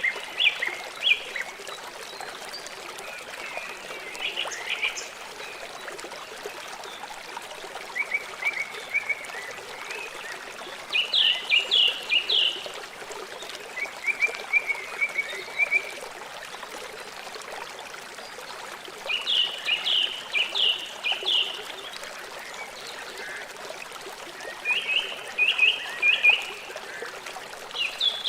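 River water running steadily. Over it, an animal calls in short series of rapid high chirps, about eight series, each a second or so long and a few seconds apart.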